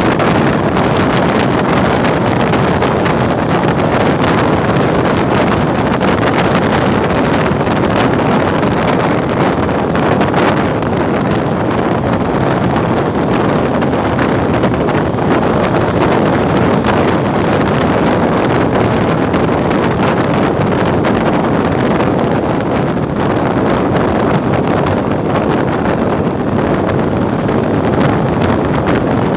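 Steady wind rushing over the microphone of a motorcycle at cruising speed, with the bike's running noise mixed in underneath.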